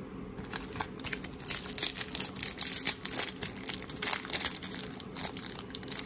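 Foil wrapper of an Upper Deck hockey card pack crinkling and crackling irregularly as fingers handle it and work at its top to open it, starting about half a second in.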